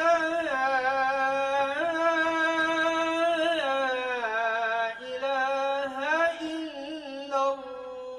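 A man's unaccompanied voice chanting an Islamic recitation for congregational prayer. He holds long, ornamented notes that step up and down in pitch, pausing only briefly for breath.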